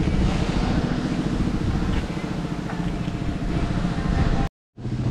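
A vehicle engine running steadily with a low hum. The sound drops out completely for a moment near the end, and a similar steady engine hum comes back.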